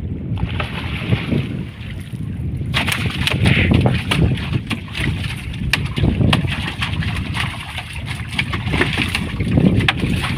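Wind and water washing around a small wooden fishing boat. From about three seconds in, a run of sharp slaps and knocks as a freshly gaffed king fish (surmai) thrashes on the boat's floor.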